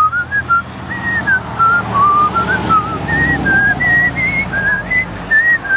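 A person whistling a tune: a string of short notes stepping up and down. The whistle is thin and partly just blowing, which the whistler herself calls terrible.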